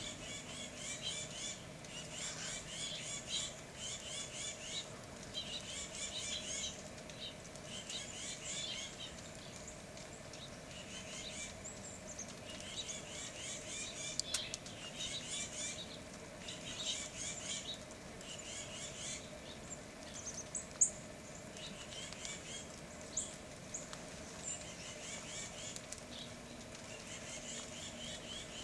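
Small songbirds calling: bursts of quick, high chirps and twitters, each about a second long, coming again every second or two, with one sharper high chip about three-quarters of the way through. A faint steady hum lies underneath.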